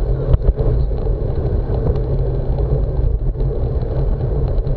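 Wind rumbling steadily on the microphone of a camera riding on a road bicycle, with road and tyre noise underneath.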